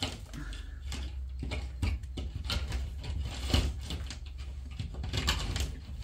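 Thin plastic-jacketed fiber optic cable being handled and pulled through a wall plate: irregular light rustles and taps, over a low hum.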